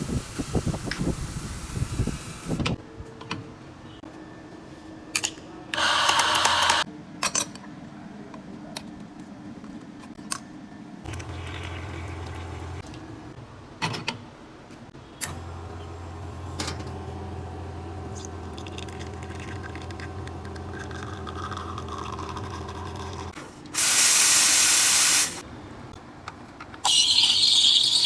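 Espresso-making sounds: clicks and knocks of handled equipment, a short hiss about six seconds in, then a steady low pump hum for several seconds while espresso is pulled. Near the end comes a loud burst of steam hissing for about a second and a half.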